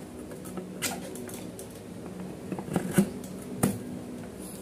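Plastic stand-fan blade being handled and pushed onto the motor shaft by hand: several light clicks and knocks, the strongest about three seconds in, over a steady low hum.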